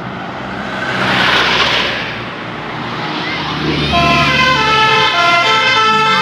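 Traffic and engine noise with a rush of hiss about a second in, then about four seconds in a Basuri telolet multi-tone bus horn starts playing a tune, its notes stepping up and down in pitch.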